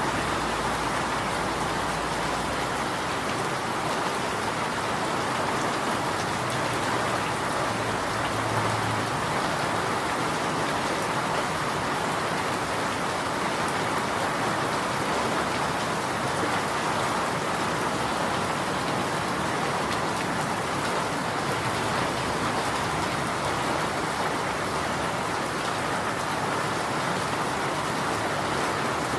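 Steady rain falling, an even unbroken hiss of rainfall on surfaces.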